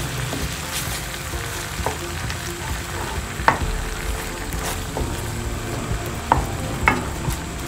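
Curry paste and coconut cream sizzling in a nonstick frying pan as a wooden spatula stirs and scrapes through it, frying the paste in the cream over low heat. A few sharp clicks of the spatula against the pan come about halfway through and twice near the end.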